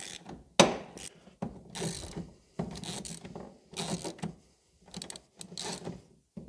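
Ratchet handle clicking as it turns the threaded spindle of a wheel-bearing puller, drawing a seized wheel bearing out of a car's rear hub carrier. A loud sharp crack about half a second in as the bearing gives under load, then repeated short ratchet strokes.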